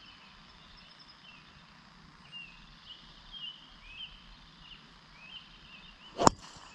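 Faint bird chirps in the background, then a single sharp crack about six seconds in as a driver strikes a golf ball off the tee.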